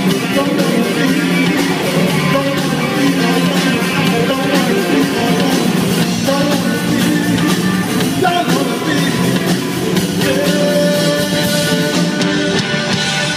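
Live rock band playing: a singer with electric guitar, electric bass and a drum kit, loud through the stage PA. Near the end the cymbals stop as the song winds down.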